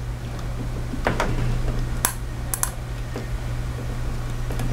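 A few light clicks and taps as a small fan capacitor's wire leads are pushed into the slots of a plastic power strip outlet, over a steady low hum.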